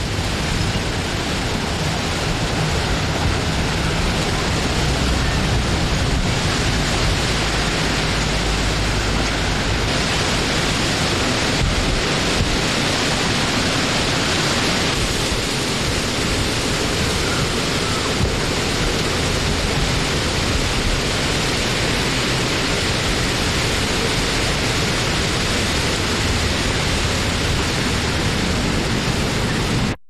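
Wind blowing as a steady, even rushing noise with a low rumble underneath, rising in over the first second.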